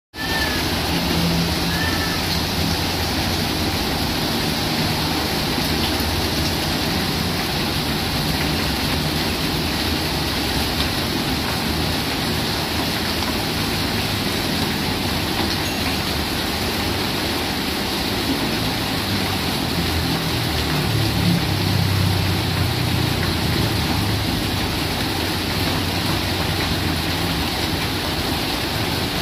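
Heavy rain pouring steadily onto a paved lane, puddles and garden foliage, a dense even hiss. A low rumble swells briefly about two-thirds of the way through.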